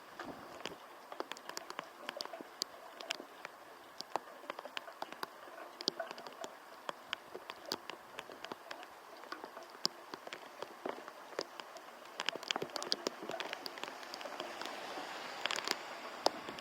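Typhoon rain with irregular drops tapping sharply on a nearby surface over a steady hiss. The tapping grows denser and louder near the end.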